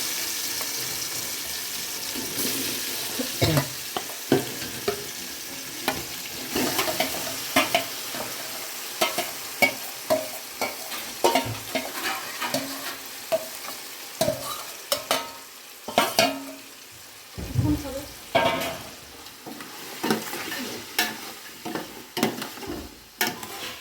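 Marinated chicken pieces sizzling in hot oil with whole spices, while a utensil scrapes and knocks against the pan as the chicken is stirred. The sizzle is loudest at the start and slowly dies down.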